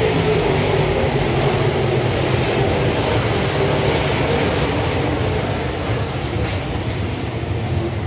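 A field of dirt-track modified race cars lapping the track, their V8 engines blending into one steady drone heard from the grandstand, easing off a little near the end.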